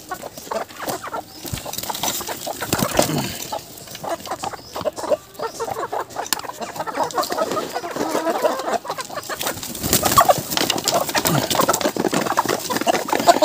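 A flock of hens clucking and squawking as they crowd a feeding trough, with many short taps and clicks throughout.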